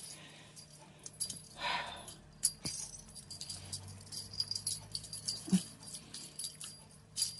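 Small bells jingling and tinkling lightly on and off, with soft rustling and a few light clicks.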